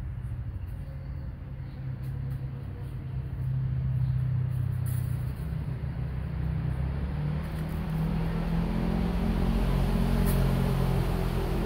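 A motor engine's low steady hum that grows louder about four seconds in and again from about eight seconds.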